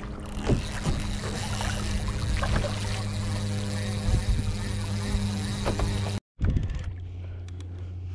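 Kayak paddle strokes splashing in the sea, over a steady low hum. The sound drops out for a moment about six seconds in, and the hum carries on more quietly afterwards.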